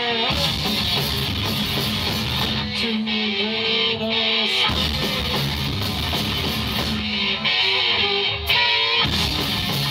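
A heavy rock band playing live: electric guitars over bass and drums, loud and dense.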